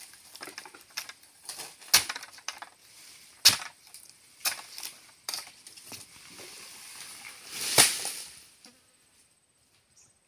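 Steel pole chisel (dodos) chopping into a harvested oil palm fruit bunch on the ground: about eight sharp, irregular strikes, the loudest near the end.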